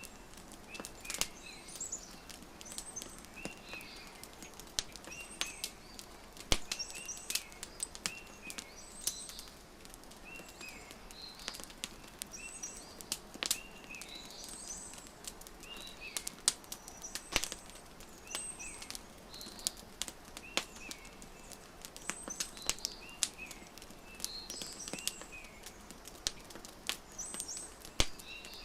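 Wood fire crackling with frequent sharp pops, layered with a small bird repeating short, high chirping phrases every second or two.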